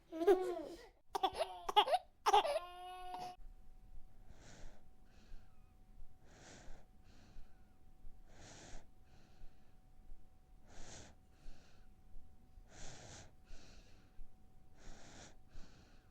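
Baby crying in a few short cries, then breathing in and out audibly, a breath pair about every two seconds.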